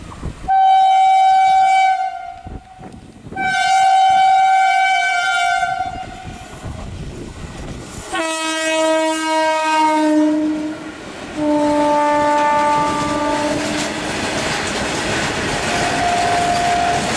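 Air horn of a WAG-5 electric locomotive sounding two long blasts, then two more long blasts at a lower pitch. Open BOXN freight wagons then rumble and clatter past over the rails near the end.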